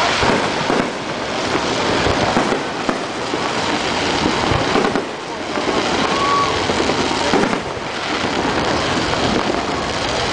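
Fireworks display going off continuously, a dense run of bursts with occasional low booms, and crowd voices underneath.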